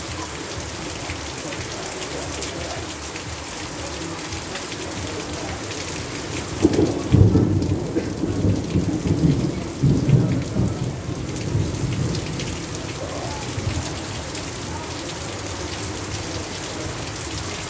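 Heavy rain falling steadily. About six and a half seconds in, a low roll of thunder swells, rumbles for about five seconds and fades back under the rain.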